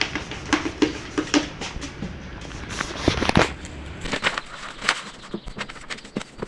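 Irregular crinkling, rustling and tapping of paper and packaging being handled at close range.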